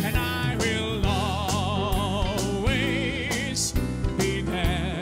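Live band playing a song, with drums and bass under a lead line held in long notes with a wide vibrato.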